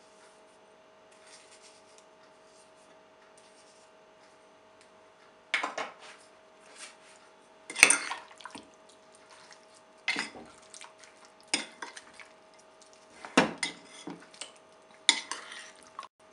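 Metal spoon knocking and scraping against a bowl while stirring raw chicken with spices and pastes. There are a few irregular clinks, starting about five seconds in, and the loudest comes about eight seconds in.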